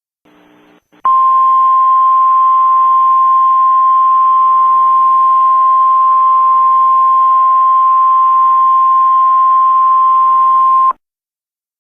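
Emergency alert attention tone: one steady, loud, single-pitch tone of about 1 kHz over a layer of hiss. It starts about a second in, holds for about ten seconds and cuts off abruptly, marking the start of an emergency broadcast.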